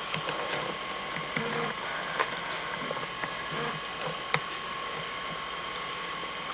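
Steady hiss with a faint steady tone underneath, broken by a few light clicks and soft knocks of things being handled and moved while searching through belongings, sharpest about two and four seconds in.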